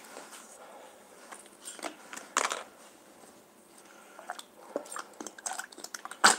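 Small packet crinkling and being torn open by hand, with scattered crunchy handling noises and a few sharp knocks, the loudest near the end.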